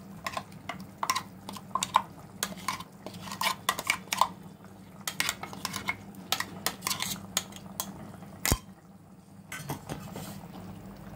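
Steel mixer jar and spatula clinking and knocking against the rim of a metal cooking pot as thick ground masala paste is scraped out, a rapid uneven run of clicks with one sharp knock about eight and a half seconds in, over a low steady hum.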